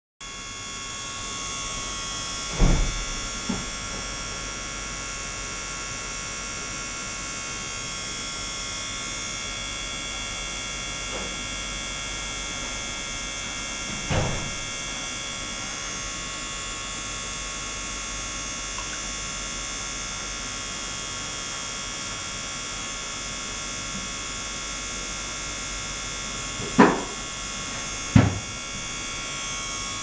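Steady electrical hum with many high fixed-pitch whining tones from a running flow-through ultrasonic water system. A few dull knocks, about four in all, come as the ultrasonic tester's sensor probe is handled against the aluminium box, the last two close together near the end.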